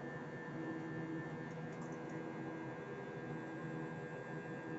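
Steady drone of a jet airliner's engines and airflow heard inside the passenger cabin, with a low hum and a faint high whine running through it.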